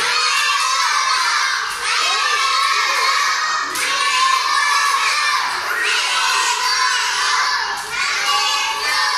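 Many young children shouting and cheering together, a loud, continuous high-pitched din that dips briefly about every two seconds.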